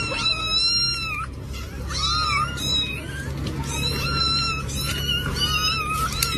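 Cat meowing over and over, a run of about five high-pitched calls, each less than a second long.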